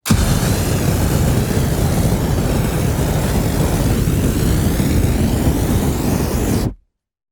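A large fire burning steadily, a dense, deep noise with crackle in the highs. It starts suddenly and cuts off shortly before the end.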